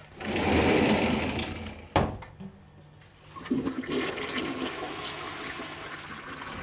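Toilet flushing: a loud rush of water that fades over about two seconds. A sharp knock of the bathroom door shutting follows about two seconds in, and from about three and a half seconds water runs steadily, as the cistern refills.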